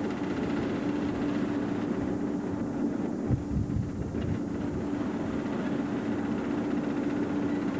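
Steady drone of a warship's engines with a constant hum, heard on the open deck, with a few low thumps about three and a half seconds in.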